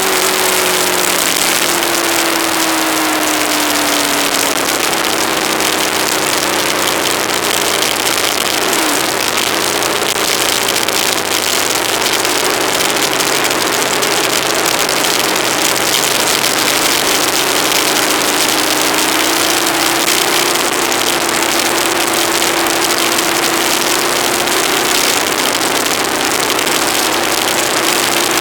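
Steady loud wind rush over a motorcycle-mounted action camera at riding speed, with the Aprilia ETV1000 Caponord's V-twin engine note faint underneath. The engine note drops over the first few seconds and climbs again later on.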